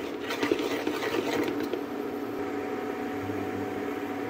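Steel spoon scraping and stirring dry semolina in a stainless steel pan as it roasts, over a steady machine hum. The scraping is clearest in the first second or so.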